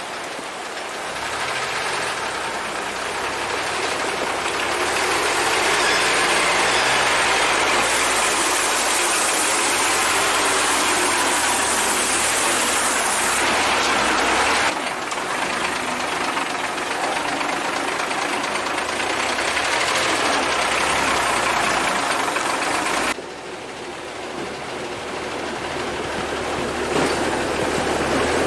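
Old Soviet ZIL truck's engine running hard under a heavy load on a steep climb, loud and steady, with the sound changing abruptly twice, about halfway and again near the end.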